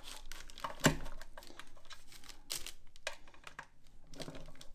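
Light irregular clicks and taps of small metal hardware being handled: a screw, a thin washer and a steel trunk-lid hinge being fitted together, with a louder tap about a second in.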